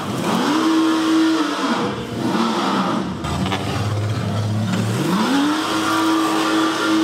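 Car engine revved up and held at high revs, dropping back, blipped briefly, then revved up and held high again, as the driver tries to spin the car around on the throttle without success.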